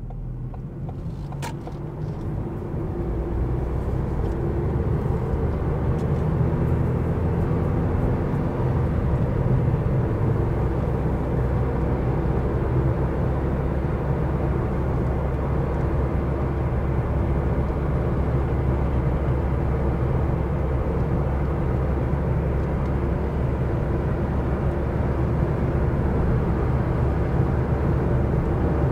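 Car driving at a steady speed, heard from inside the cabin: a constant low engine and road rumble. It fades in over the first few seconds.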